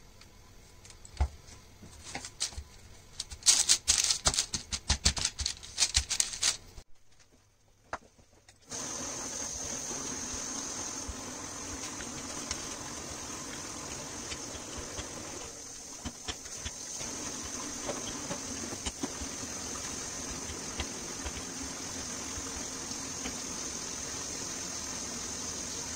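Pastry dough and baking paper being handled on a cutting board: a dense run of crinkling and crackling with sharp clicks for several seconds. After a brief silence comes a steady hiss and low hum with a few light knocks while the dough is rolled out with a wooden rolling pin.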